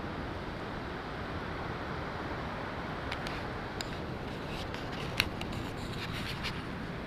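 Steady rush of Abol Falls' water, with scattered light clicks and rubbing sounds from about three seconds in and one sharper click a little after five seconds.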